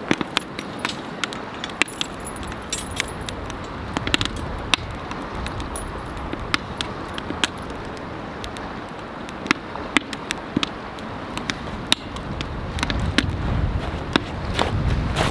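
Wood fire crackling with irregular sharp pops in a stainless steel fire pit. The metal chain of a cooking tripod jangles and clinks as a cast iron Dutch oven is hung over the flames. A steady rush of river water sits underneath, and wind rumbles on the microphone in the last few seconds.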